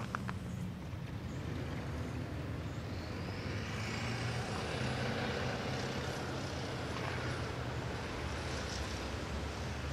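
Road vehicle passing: a steady low engine sound with tyre hiss that swells from about three seconds in and then eases.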